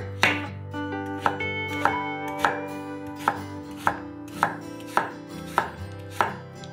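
Kitchen knife slicing a peeled raw potato on a wooden cutting board: about ten sharp chops at a steady pace, a little under two a second, each blade stroke knocking on the board.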